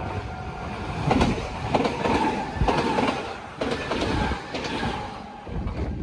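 Kintetsu electric commuter train passing close by, its wheels clattering over the rail joints in a series of sharp knocks over a steady running rumble.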